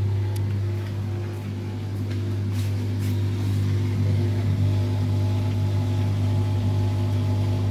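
The motor of a Lux WH 262 front-loading washing machine is running with a steady low hum, but the drum does not turn.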